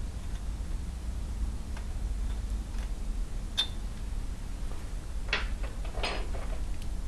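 Light metallic clicks and ticks of hand tools being handled around a thread tap in a motorcycle cylinder head, over a steady low hum. One sharper click comes about halfway through and a few more near the end.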